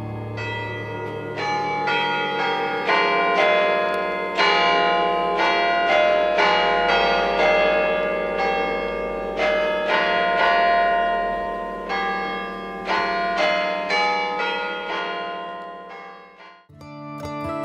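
Bells ringing in a run of overlapping strokes, one to two a second, over a steady low hum, cutting off abruptly about a second before the end.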